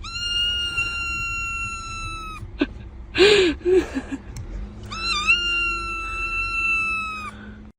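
A pet's two long, high, steady-pitched cries, with a short cry that rises and falls between them.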